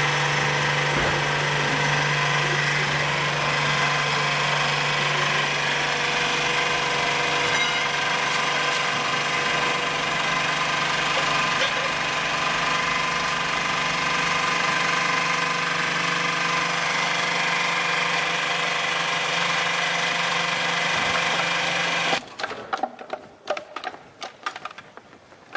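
Engine running steadily with a dense mechanical clatter and a low hum. It cuts off suddenly near the end, leaving scattered knocks and clanks.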